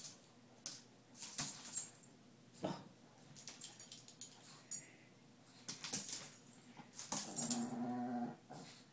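Two small dogs playing on a tile floor: scattered sharp clicks and scuffles of paws and claws, and about seven seconds in a dog vocalises in a drawn-out sound lasting about a second.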